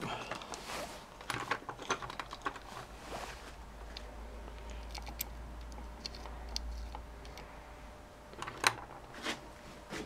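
Scattered small metal clicks and taps as the trigger plate and its screws are handled and seated in the aluminium housing of a BMW motorcycle Hall-effect ignition unit, with one sharper knock near the end.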